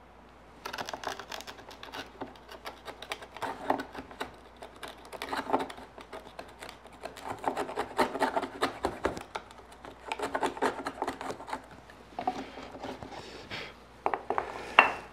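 Bent-shank paring chisel scraping across the bottoms of the half-lap notches in a wooden lattice bar, in repeated bursts of short rasping strokes, taking them about half a millimetre deeper because they were cut too shallow. A single sharp knock comes just before the end.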